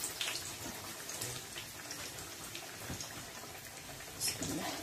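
Yeast doughnut dough frying in hot oil in a pan: a steady crackling sizzle.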